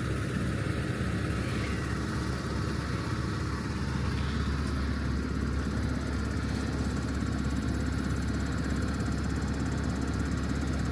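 Tractor engine running steadily, an even low drone that holds the same level throughout.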